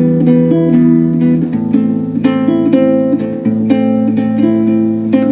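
Solo guitar playing the instrumental introduction of a song, picked notes over low bass notes that change twice.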